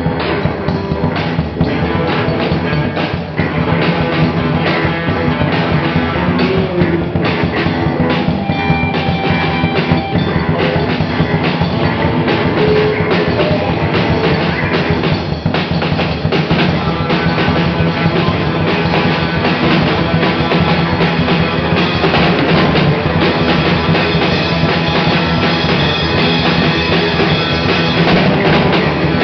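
Live instrumental punk-rock jam: a drum kit, an electric guitar and an electric bass playing together steadily.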